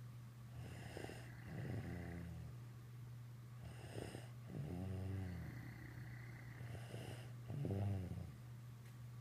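Snoring: three long, rattling snores about three seconds apart, each a drawn-out breath whose pitch sinks as it fades.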